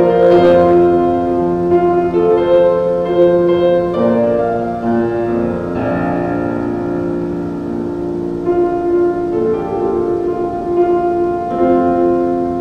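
Grand piano playing slow, held chords.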